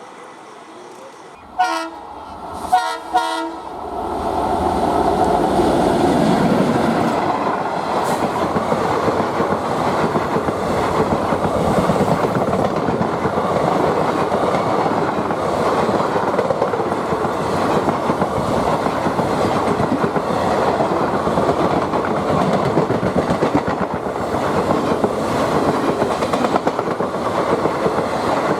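An Indian Railways ALCO diesel locomotive sounds its horn in a few short blasts. A train then passes at speed with a steady rush of engine and wheel noise and a fast clickety-clack over the rail joints.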